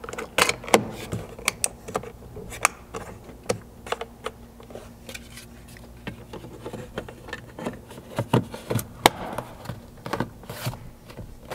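Plastic trim covers on a Ford Bronco rear door panel being handled and pressed into place: a scattered series of sharp plastic clicks and taps, over a faint steady hum.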